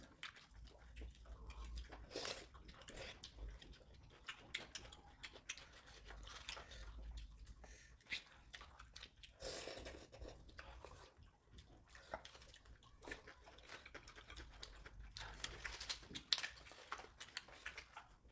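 Several people eating at close range: quiet chewing of chewy rice cakes and fried chicken, with light clicks of wooden chopsticks against paper cups and scattered short bursts of eating noise.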